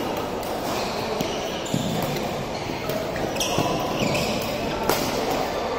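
Badminton rally: sharp racket hits on the shuttlecock, the clearest a little before the end, and sneakers squeaking on the court floor in the middle, over voices from the surrounding courts.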